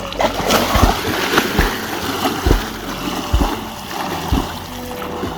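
Water splashing as a swimmer does an undulating, dolphin-style stroke, with a low thump and splash about once a second.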